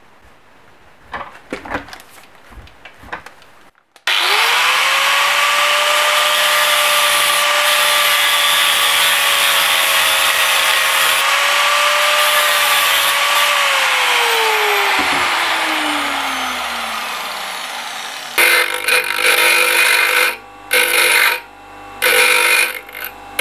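Angle grinder starting about four seconds in and cutting a small metal piece clamped in a vise, with a steady whine. It is switched off and winds down with a falling whine. Near the end, a bench grinder grinds a small metal part in several short passes with pauses between them.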